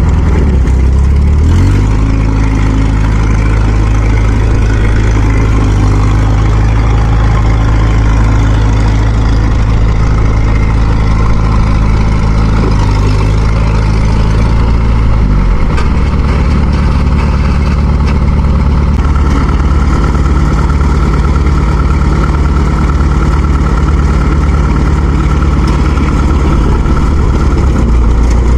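Heavy farm-machine engine running loud and steady, apparently working under load during the tow of a mired rice harvester. Its pitch steps up about two seconds in and drops back about halfway through.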